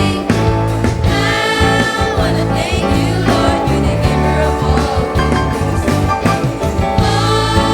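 Children's choir singing a worship song over instrumental accompaniment with sustained bass notes.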